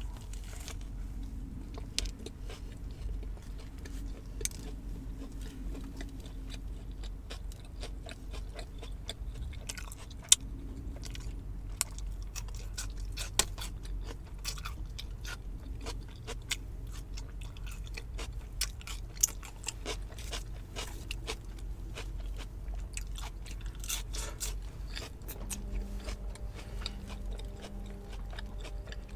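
A person chewing and biting into a Burger King Whopper with cheese close to the microphone: many irregular mouth clicks over a steady low rumble. A faint steady hum comes in near the end.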